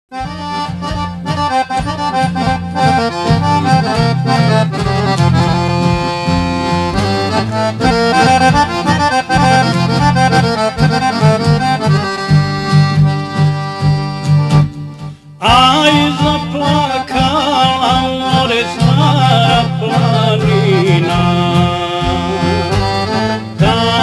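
Accordion-led instrumental introduction to a folk song, with the accordion playing over steady bass chords. The music drops out briefly about 15 seconds in and comes back with a wavering melody line.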